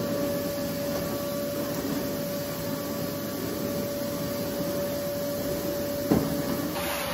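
Canister wet-and-dry vacuum cleaner running steadily with a high whine as its floor tool is worked over carpet. A single knock about six seconds in.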